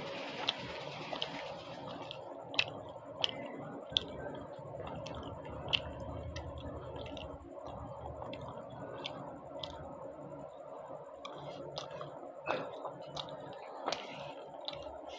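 A person chewing luchi (puffed fried bread) with cholar dal, with frequent short wet mouth clicks and smacks over a steady background hiss.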